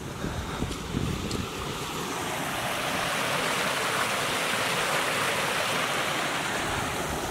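A small stream of water rushing through a narrow, overgrown channel, getting louder over the first few seconds as it is approached. There are a few low thuds in the first couple of seconds.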